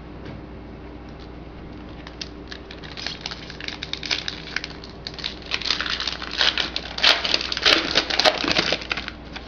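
Foil trading-card pack wrapper being crinkled and torn open, the crackling growing louder over the last few seconds.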